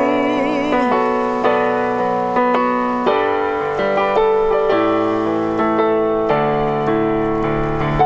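Piano playing a slow instrumental passage of struck chords that ring on. In the first second a singer's last held note, with vibrato, fades out.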